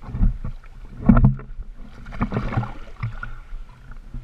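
Seawater sloshing and splashing against a waterproof action camera held at the surface, with irregular knocks and bumps on the housing, the loudest cluster about a second in.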